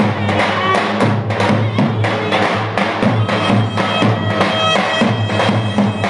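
Clarinet playing a melody over davul drums beaten in a steady beat.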